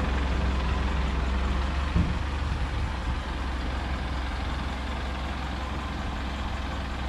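Delivery truck's engine idling with a steady low rumble, a little louder in the first few seconds, and a single click about two seconds in.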